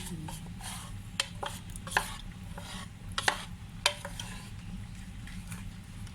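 A utensil stirring thick palabok sauce in a pot, scraping, with a few sharp clinks against the pot, over a steady low hum.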